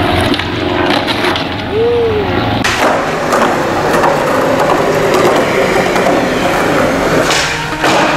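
Skateboard wheels rolling over rough concrete, with a few sharp clacks of the board.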